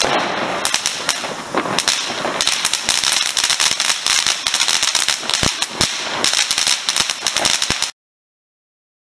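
Rack of Bengal fireworks burning: dense crackling and popping over a steady hiss, with one louder pop about halfway through. The sound cuts off suddenly near the end.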